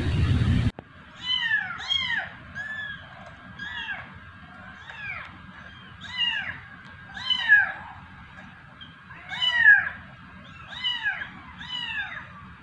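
Kittens meowing over and over: short, high-pitched calls that rise and fall, one or two a second, some overlapping. Under a second in, a steady noise cuts off abruptly before the meowing begins.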